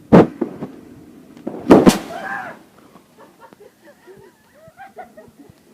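Fireworks going off: a sharp bang just after the start, then two more bangs close together about a second and a half later.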